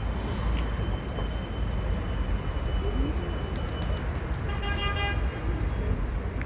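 Street traffic noise with a steady low rumble, and a horn sounding once for about a second, about four and a half seconds in.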